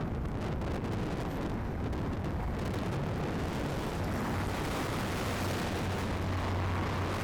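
Strong wind blowing and buffeting the microphone: a steady low rumbling noise that gusts a little harder in the second half.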